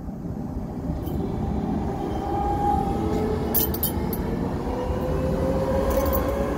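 Electric city tram passing close by on its rails: a low rumble that grows louder as it nears and then holds, with a thin whine that slowly rises in pitch, and a few sharp clicks about halfway through and near the end.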